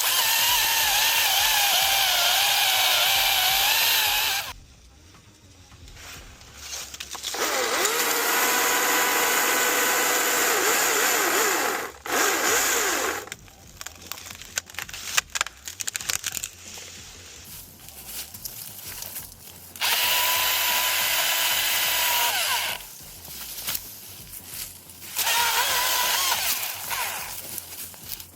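Husqvarna 225i battery chainsaw cutting wood in about four separate runs of a few seconds each, its motor pitch wavering under load. It goes quiet between cuts rather than idling.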